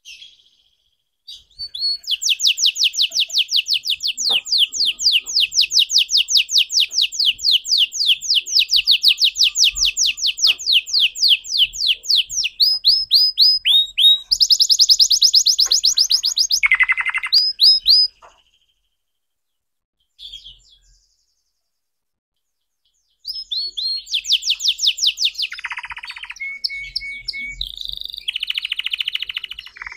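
Red factor canary singing: a long, fast trill of rapid down-slurred notes, then single slurred whistles, a second quick trill and a lower buzzy note. After a pause of a few seconds broken by one short call, it sings again in varied rolls and buzzy phrases.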